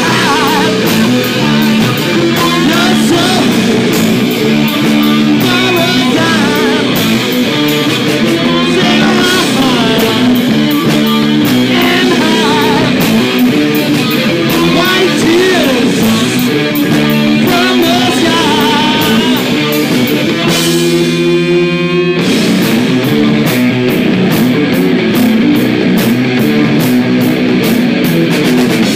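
Live rock band playing loudly: electric guitars and a drum kit. About twenty seconds in, the drums drop out for a second or so while a guitar chord rings alone, then the full band comes back in.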